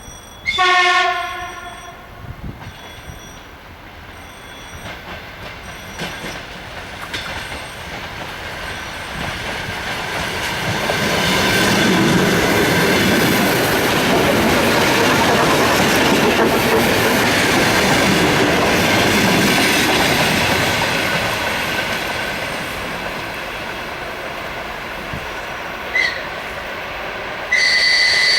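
Electric commuter train at a level crossing: the crossing bell dings about once a second, the train's horn sounds one short blast near the start, and the train approaches and runs over the crossing with a loud rolling rumble that swells and then fades. Near the end a short whistle chirp is followed by the start of a long, steady high-pitched whistle.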